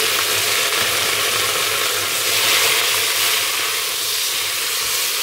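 Sliced onions sizzling loudly in hot oil in a steel pot, spattering hard with a tablespoon of water just added, while a wooden spatula stirs them. The hiss swells around the middle and eases slightly toward the end.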